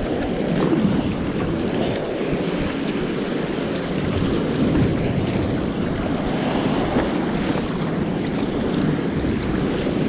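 Wind buffeting the microphone over choppy sea, mixed with water sloshing and splashing around a sea kayak as it is paddled through the swell. A steady rushing noise with no distinct strokes standing out.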